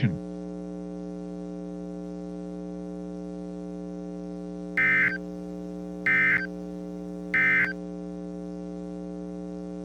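Steady electrical hum with a stack of buzzy tones under it. About five seconds in come three short, identical bursts of EAS SAME digital data tones, about 1.3 seconds apart. Their shortness fits the end-of-message code that closes an alert.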